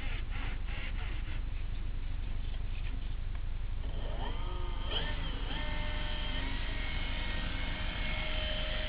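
Senior Telemaster RC model airplane's motor and propeller spinning up in a rising whine about four seconds in, then holding at a steady pitch as it runs on the ground before takeoff. A low wind rumble runs underneath.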